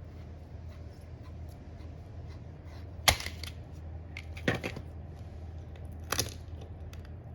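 Three sharp clicks, with a few fainter ticks between them, from small hard parts or tools being handled, over a steady low hum.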